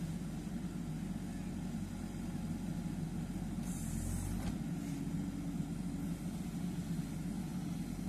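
JCB 3DX backhoe loader's diesel engine running steadily as the backhoe arm digs soil, with a short hiss about four seconds in.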